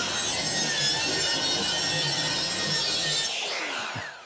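Circular saw cutting through a wooden board, a steady loud run through the cut. About three seconds in the saw is released and its blade winds down with a falling whine.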